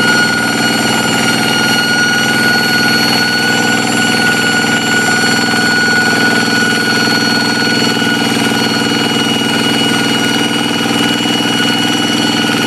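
Kubota single-cylinder diesel engine on a hand tractor running steadily under work, with a high, unchanging whine ('ngiung ngiung') riding over the engine note.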